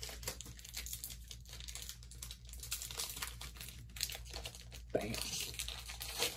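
Foil booster-pack wrappers crinkling and trading cards being handled, with irregular rustles and a bit of tearing.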